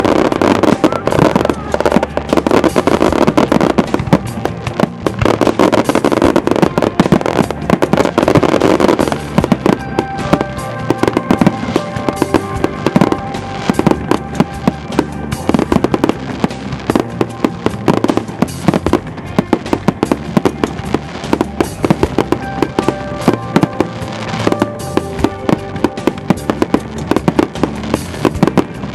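Fireworks display: a dense barrage of shell bursts and crackling for the first several seconds, then a steady run of separate sharp bangs, with music playing under them.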